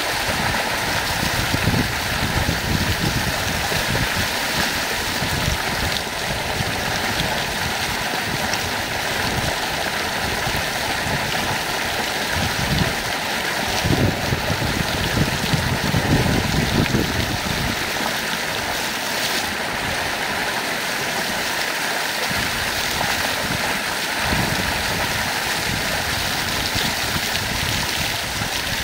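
Thick stream of water gushing from a concrete tank and splashing down onto a person bathing beneath it: a steady, continuous rush of falling water.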